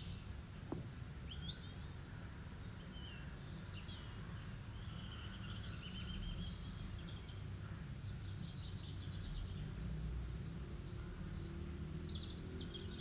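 Small birds chirping and trilling on and off over a low steady hum.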